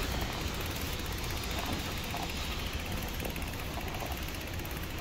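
Steady low vehicle rumble, with no clear single event standing out.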